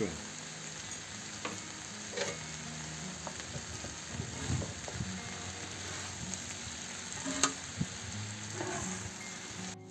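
Sliced potatoes and onions sizzling on a hot metal saj griddle, with a spatula scraping and turning them every second or two.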